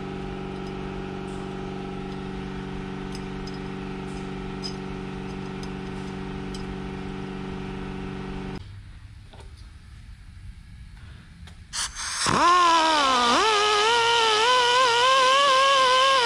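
A steady mechanical hum of several even tones, then, after a quieter gap, a handheld die grinder spins up about twelve seconds in with a sharp rising whine and keeps whining, its pitch dipping and wavering as the bit cuts into the cast rocker box to clearance it for the valve spring.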